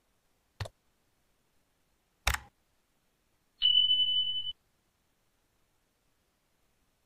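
Subscribe-button animation sound effect: two mouse clicks, the second louder, followed by a single steady high notification beep lasting about a second.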